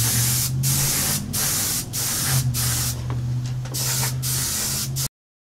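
Airbrush spraying DuraCoat firearm finish in short passes: a steady hiss of air and paint broken by brief gaps about every two-thirds of a second, over a steady low hum. The sound cuts off suddenly about five seconds in.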